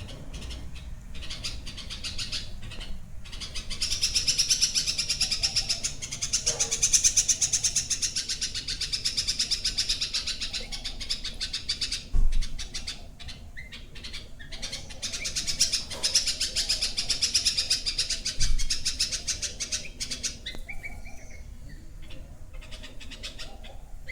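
Small birds chirping in fast, dense runs, loudest from about four to twelve seconds in and again from about fifteen to twenty seconds in. Two brief thumps come in between, one about twelve seconds in and one about eighteen seconds in.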